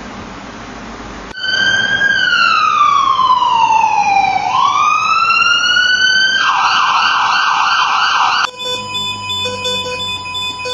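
Steady hiss, then about a second in an ambulance siren starts with a slow wail, sliding down in pitch and back up, and switches to a fast yelp. It cuts off suddenly, giving way to a heart monitor's steady tone with repeated beeps.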